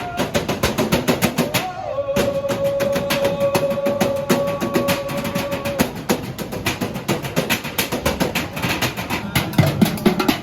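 Music driven by fast, steady drumming, with one held note from about two seconds in until about six seconds in.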